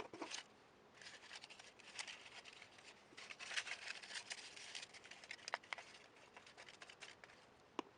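Faint rustling and crinkling of paper being handled, folded and pressed onto cardboard tubes, in scratchy clusters with a couple of sharp clicks near the end.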